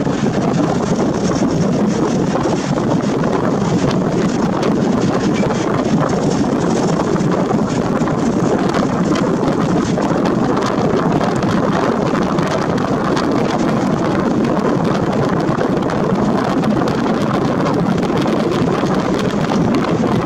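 Steady wind rushing over the camera's built-in microphone, an even noisy hiss with no distinct events.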